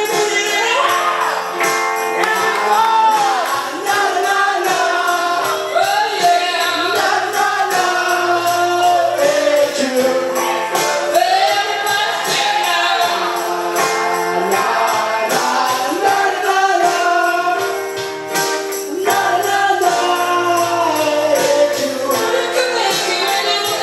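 Live music: singing a wordless sing-along refrain over steady instrumental accompaniment.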